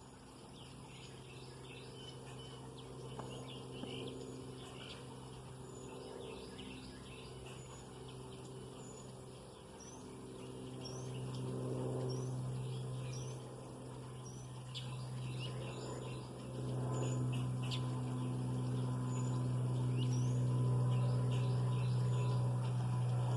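Small birds chirping and calling, with a steady low engine-like drone underneath that grows louder from about halfway and is loudest near the end.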